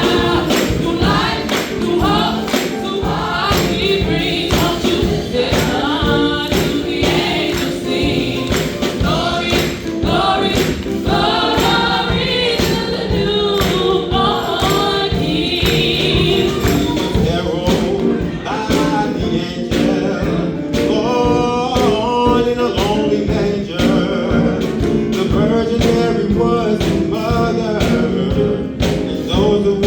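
Choir singing an up-tempo gospel song over a steady percussion beat.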